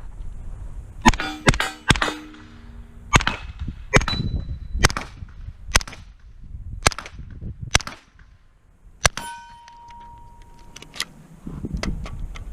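Shots from a B&T APC9 9 mm carbine fired singly, about ten rounds at roughly one a second, some followed by a brief ringing tone.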